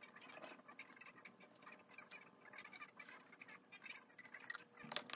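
Faint eating sounds: a plastic spoon scraping and tapping a small plastic cup, and soft chewing, as small scattered clicks and scratches. A few sharper clicks near the end come from a plastic bottle being handled for a drink.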